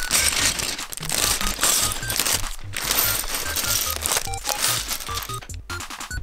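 Clear plastic bag of LEGO parts crinkling as it is pulled open and handled, over background music with short plinking notes and a steady bass beat. The crinkling stops near the end, leaving only the music.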